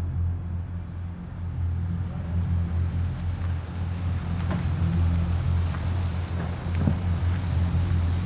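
A car's engine running with a low, steady rumble as the car rolls slowly in, with a few faint clicks from the tyres on cobblestones.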